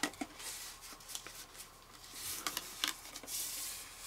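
Hands handling a trim board wrapped in adhesive wood-grain contact paper, rubbing and creasing the paper: soft rustling and rubbing with a few light clicks.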